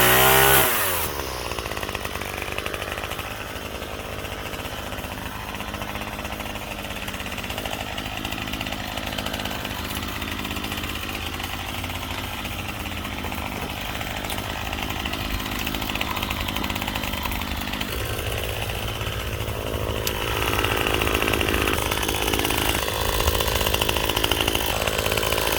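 Chainsaw running at high revs, which drop away within the first second, then running more quietly and steadily, and picking up again about twenty seconds in.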